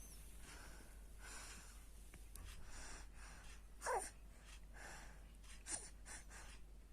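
A sleeping baby snoring softly, a run of breathy snores with a short squeaky sound falling in pitch about four seconds in and a smaller one near six seconds.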